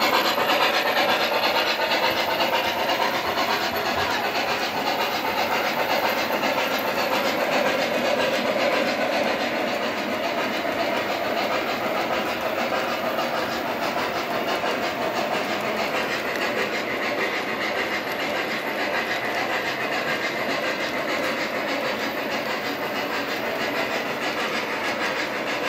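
O scale model trains running on the layout track: a steady, even rolling noise from the wheels and motors, with no pauses.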